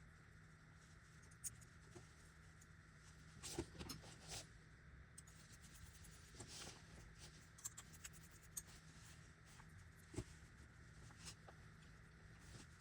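Faint, scattered small clicks and light taps at irregular intervals over a steady low hum.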